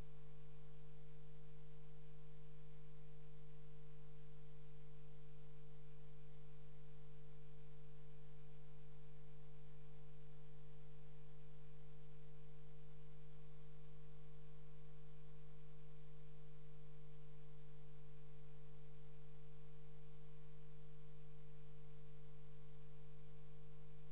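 Steady electrical hum with a faint high whine above it, unchanging, with no other sound.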